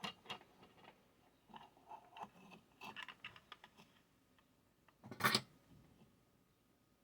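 Small clicks and rustles of wires and small tools being handled, then one short, louder noisy burst about five seconds in.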